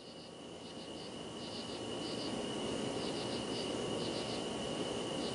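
Insects chirping in short rapid pulse groups over a steady high tone and a soft rushing background, the whole bed fading in gradually.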